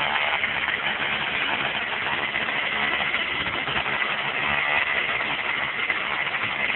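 Weed eater engine running steadily with a constant buzz as it drives a homemade pipe propeller on a small boat.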